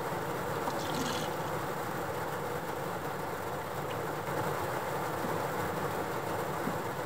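Steady rain on a car's body, heard from inside the car as an even hiss, with a short brighter hiss about a second in.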